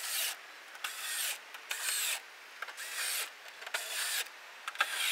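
Small cordless screwdriver driving screws into a pickup's plastic tailgate top plate, running in short bursts of about half a second, roughly once a second, with a whine that shifts in pitch as each screw seats.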